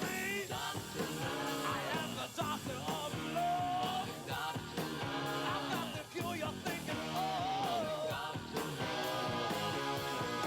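Rock music playing, with electric guitar whose notes bend and slide over a full band.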